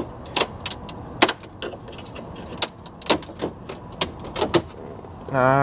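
Irregular sharp clicks and taps of a plastic dash cover being handled and pressed against a truck's dashboard.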